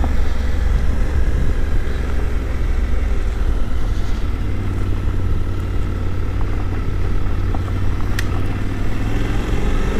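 Suzuki V-Strom 800 DE's parallel-twin engine running steadily while under way, heard from the rider with wind and road noise. There is one sharp click about eight seconds in.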